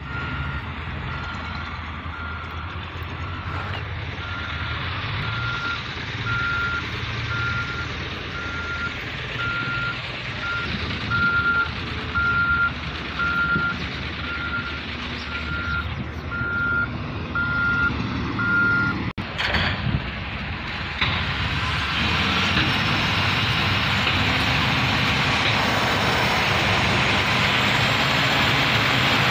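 Reversing alarm of a heavy construction vehicle beeping at about one beep a second over the low, steady running of its engine. About two-thirds of the way through the beeping stops and a louder, steady rushing noise takes over.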